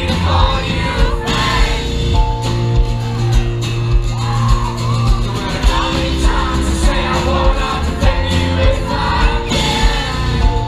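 Rock band playing live, with singing over a steady drum beat and held chords.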